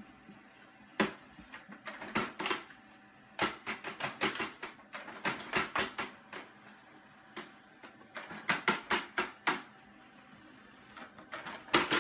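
A cat's paws tapping and batting at a printer's plastic output tray and paper: quick clusters of sharp clicks and taps, several bursts of a few strikes each, separated by short pauses.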